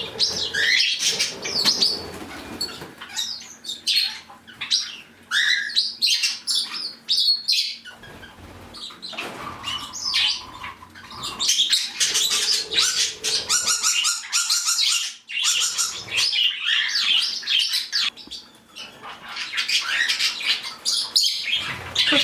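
A mixed flock of pet budgies and other small parrots chirping, squawking and chattering continuously, with wings flapping now and then.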